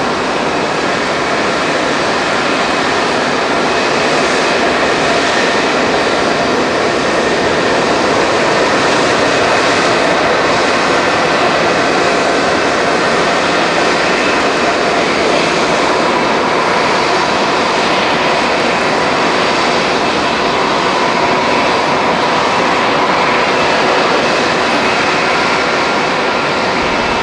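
Boeing 747SP's four jet engines running at taxi power as the airliner taxis close by: a steady whine over a continuous rush of engine noise, the whine growing a little stronger in the second half.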